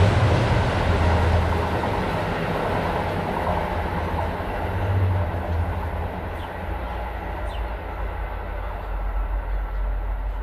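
Train running past with a low rumbling drone and wheel noise, the sound fading over the first few seconds as it draws away, then steady and lower.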